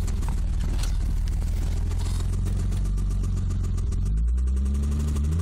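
Ford Probe's 24-valve V6 engine running with a rapid knocking, revved up about four seconds in. The knock is a fault the owners have not yet identified.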